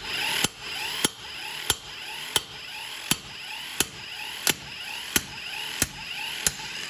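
12V cigarette-lighter impact wrench running, its small motor whining while the internal hammer strikes in sharp knocks about one and a half times a second, working a car wheel lug nut loose. The running stops near the end.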